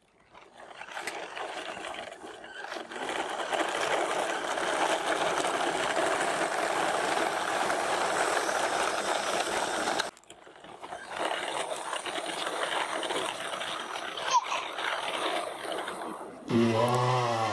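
Plastic wheels of a string-towed train of toy dump trucks rolling over rough asphalt, a steady rolling noise. It cuts off about ten seconds in, then comes back quieter, and a man's voice starts near the end.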